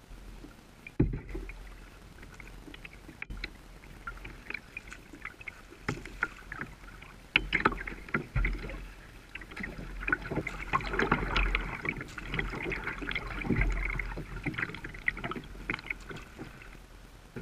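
Kayak moving through a shallow riffle, with water splashing and rushing close against the hull and irregular knocks and splashes. The rushing grows fuller about two-thirds of the way through.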